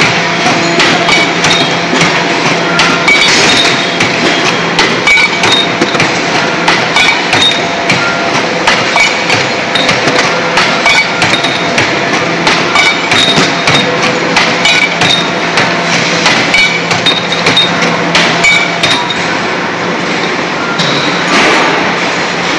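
CNC automatic steel bar feeding and cutting machine running: a steady hum under frequent, irregular metal clanks and knocks.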